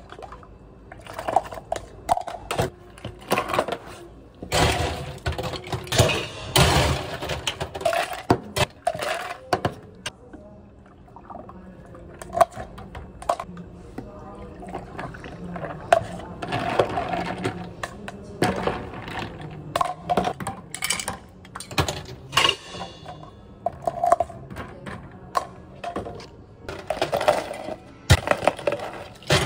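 Bubble-tea drinks being made at a steel counter: liquid poured into plastic cups, ice clinking and clattering, and cups and utensils knocking, in repeated bursts of clatter.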